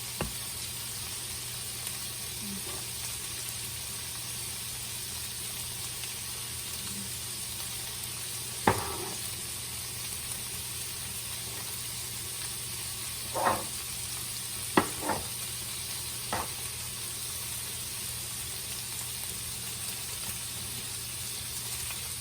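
Chicken, garlic, green pepper and onion frying in a pan with a steady sizzle. About five short, sharp knocks of a utensil against the pan come between about nine and sixteen seconds in.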